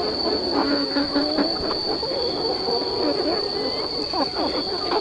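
A large flock of chickens calling all at once, many overlapping clucks and squawks, over a steady high-pitched whine.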